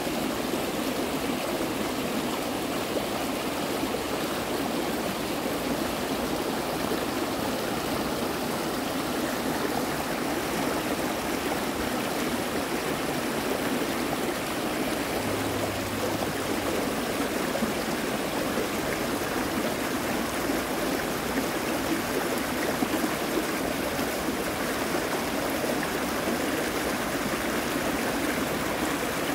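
Creek water running over shallow rapids: a steady, even rush.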